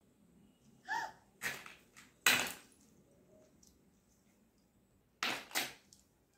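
Short rustling and clattering handling noises, four or five in all, from a toddler playing with plastic toys. A brief high squeak comes about a second in.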